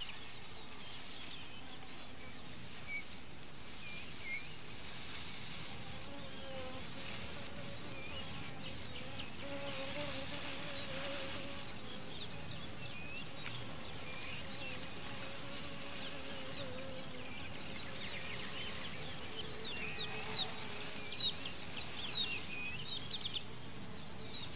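Insects trilling in a steady high chorus, swelling in a few short louder pulses about ten seconds in. Short bird chirps come and go over it, most of them near the end.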